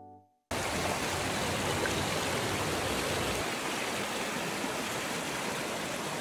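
A stream running steadily: an even rush of flowing water that starts abruptly about half a second in.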